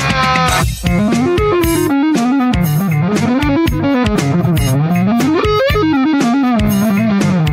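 Guitar solo in an AI-generated rock song: fast runs of notes that climb and fall again and again, with a brief drop in the music under a second in.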